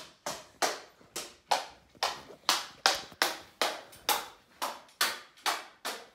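Hurried footsteps on a hard floor, an even stride of a little under three steps a second, each step a sharp knock.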